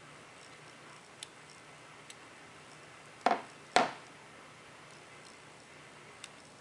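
Small clicks of plastic and metal parts as a little brass spring is worked off its retaining nubs in a turn signal switch module: a few faint ticks and two sharper clicks about half a second apart near the middle.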